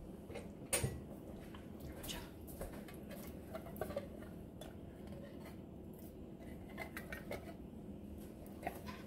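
Long metal spoon clinking and scraping against an enamelled pot as thick chili is stirred, with scattered light clinks, the sharpest about a second in.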